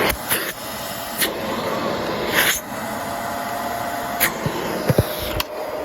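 Shark Rotator upright vacuum cleaner running with a steady motor whine, broken by several irregular sharp knocks and rattles from debris loose in its cyclone.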